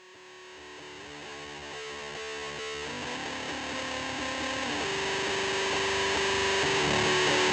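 Background music: a distorted electric guitar fading in slowly, holding long notes that change pitch about three seconds and five seconds in.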